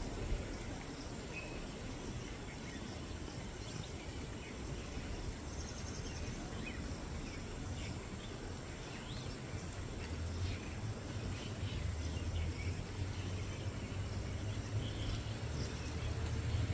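Steady outdoor hum of insects with a low rumble, and a few short, faint high calls from spotted deer (chital) sounding the alarm.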